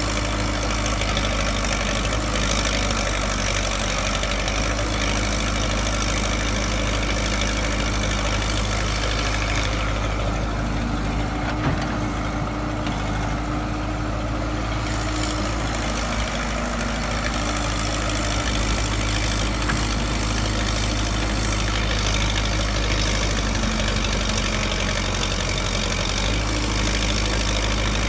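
Excavator engine running steadily, with a low drone throughout; the higher hiss over it drops away for a few seconds near the middle, and there is one brief click.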